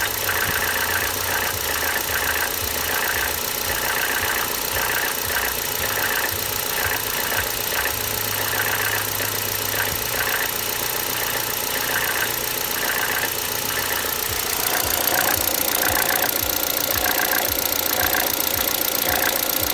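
Car engine idling with a rattle from the belt drive in the engine compartment, a dense, fast clatter over the running engine. It gets a little louder about fifteen seconds in.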